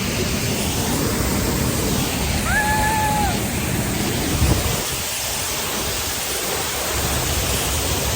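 Steady rushing of a waterfall, heard from close up, just behind the falling water.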